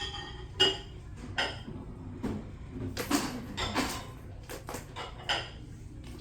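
Dishes clinking and clattering: a string of separate knocks, several with a short ringing tone, the loudest about half a second in and a cluster around three to four seconds in.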